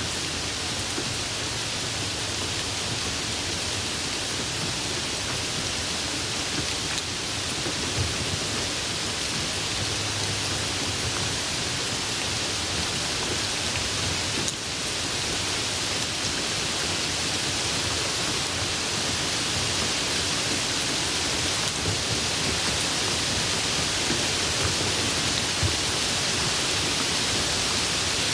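A steady hiss, strongest in the upper-middle range, with a few faint ticks.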